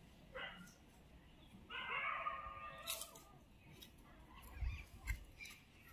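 A faint animal call: a short call, then a drawn-out pitched call about a second long, with two low thumps near the end.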